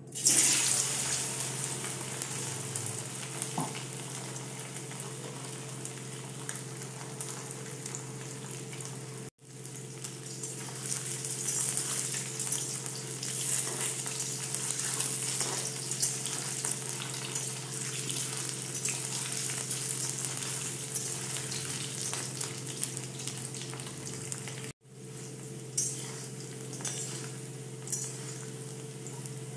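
Boiled potato chunks dropped into hot oil in a kadai: a loud sizzle at first, settling into a steady frying sizzle while a metal spatula stirs them. The sound drops out briefly twice.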